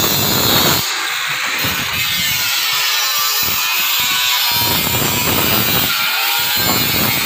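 Angle grinder cutting a corrugated steel deck sheet: a continuous high whine whose pitch drifts up and down as the disc bites into the metal.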